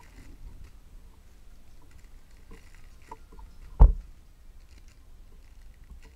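Squishy toys in clear plastic bags being handled, the plastic crinkling and rustling faintly, with one loud thump a little under four seconds in as the squishies are set down on the pile.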